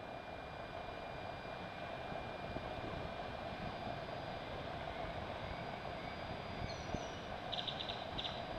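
Steady rushing outdoor noise, wind and distant surf on a beach. About seven and a half seconds in, a bird gives a quick, high twitter.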